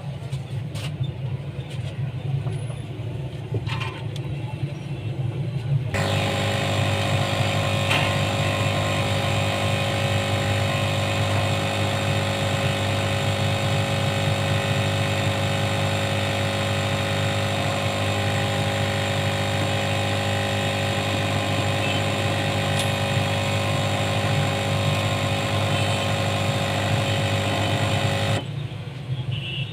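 A steady mechanical hum made of several constant tones switches on abruptly about six seconds in and cuts off shortly before the end, over a continuous low rumble of street traffic.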